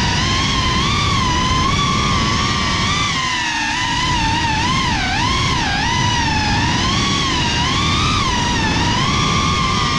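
Cinewhoop FPV drone's brushless motors and ducted propellers whining, the pitch sliding up and down as the throttle changes, over a steady rush of prop wash and wind. About three and a half seconds in the rush briefly drops and the whine dips in pitch as the throttle is pulled back, then climbs again.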